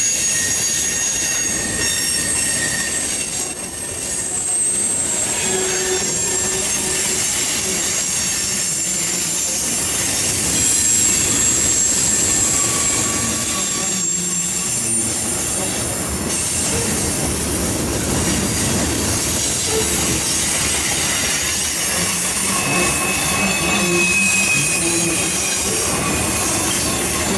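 Freight cars of a long mixed freight train rolling past close by: a steady rumble of steel wheels on rail, with high-pitched wheel squeal that comes and goes.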